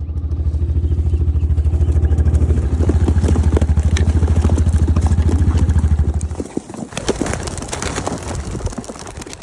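A vehicle engine running with an even low pulse, which stops about six and a half seconds in. A looser run of light clatters and flutters follows.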